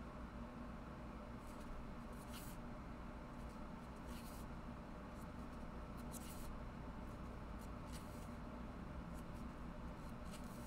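Pages of a small paperback book being flipped and leafed through by hand: a string of soft, irregular paper rustles and flicks over a low steady hum.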